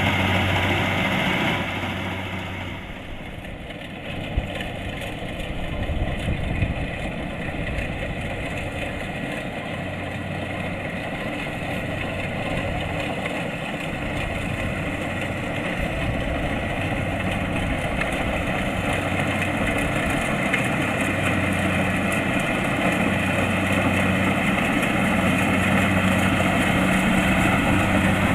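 Kubota DC-70 Plus rice combine harvester's diesel engine running steadily under working load, with a steady hum and machinery noise. It dips a little about three seconds in, then grows gradually louder toward the end.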